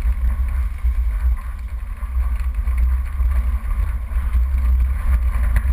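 Off-road 4x4 driving on a rough dirt track, heard from a bonnet-mounted camera: a steady low rumble of engine and tyres on gravel, with wind buffeting the microphone.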